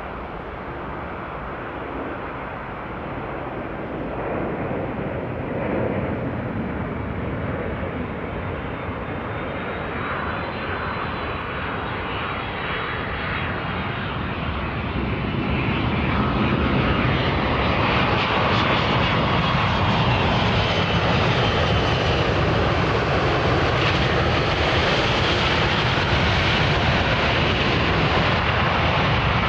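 Boeing 767-375ER twin-jet engines during a close-up landing: a dense jet rumble with a faint high whine over it, growing louder through the first half, then holding steady.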